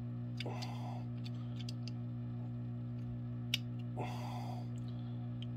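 Steady low hum throughout, with a sharp light click about three and a half seconds in as the CO2 ball discharger is worked by hand on a percussion rifle. Two short breathy noises come about half a second and four seconds in, before the cartridge seal is broken.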